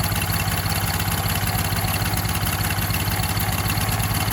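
Generator engine running on biogas (methane), idling at a steady, even pace while it warms up just after being started.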